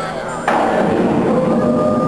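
Fireworks show soundtrack music playing over loudspeakers. About half a second in, a sudden loud hit across the whole range breaks in, and held musical tones carry on after it.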